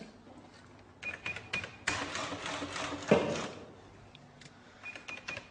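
Shop cash register ringing up a sale: a few key clicks under a steady beep, then about a second and a half of mechanical rattling.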